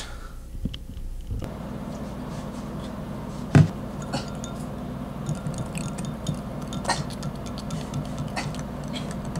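Powdered drink mix being stirred into a glass of water, with light clinks of the stirrer against the glass in the second half and one louder knock on the glass about three and a half seconds in, over a steady low hum.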